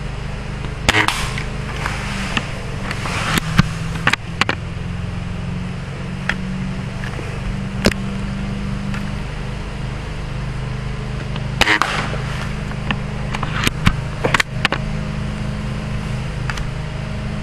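Steady hum of a lawn mower engine running in the background, with scattered short clicks and knocks from the airsoft rifle being handled.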